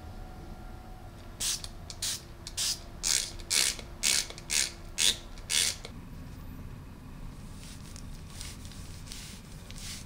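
Rhythmic swishing rubs of a gloved hand over a long-haired cat's coat, about two a second, nine in a row, then a few fainter ones near the end.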